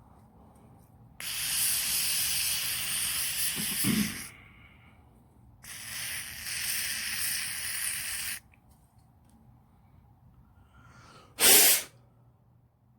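Aerosol can of CRC non-chlorinated parts cleaner spraying in two long bursts of about three seconds each, washing down a ratchet pawl. A short, louder burst of air follows near the end.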